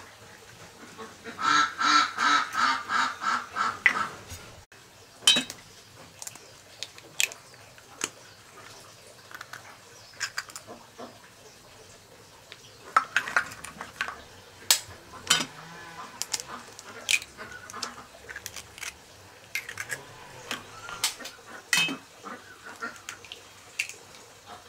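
A duck quacking in a quick run of about five calls a second for a couple of seconds near the start. After that come scattered sharp clicks and taps of duck eggshells being cracked and handled over a pot.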